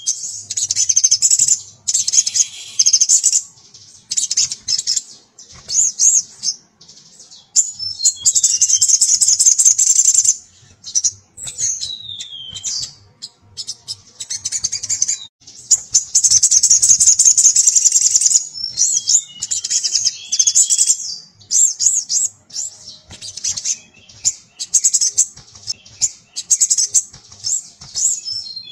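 Male sogon (sogok ontong sunbird) singing in its cage: rapid, high-pitched chattering bursts lasting a second or two, broken by short pauses and mixed with a few falling slurred notes. This is the bird's loud calling song to attract a female.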